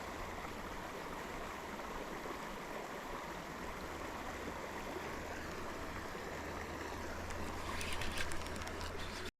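Steady rushing outdoor noise over a low steady hum, with a short spell of crackling rustle about eight seconds in; the sound cuts off suddenly at the very end.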